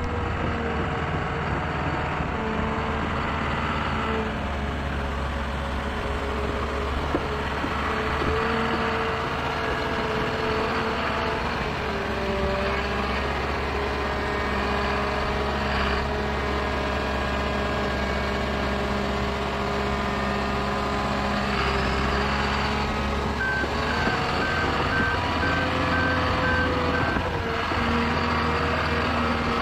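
John Deere 750L crawler dozer's diesel engine running steadily under load as it digs at a mesquite stump. About three-quarters of the way through, its backup alarm beeps about twice a second for a few seconds as it reverses.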